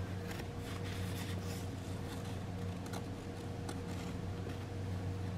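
Steady low background hum with faint, scattered rustles and ticks of a paper print being handled.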